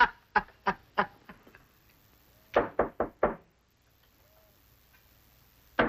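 A man's laughter trails off, then someone knocks on a door: four quick knocks about two and a half seconds in, and four more near the end.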